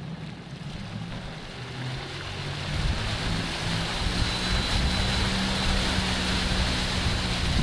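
Motorboat engine pulling under throttle with water rushing and spraying as a surfboard rider is towed up through the wake; the sound builds over the first few seconds, then holds steady.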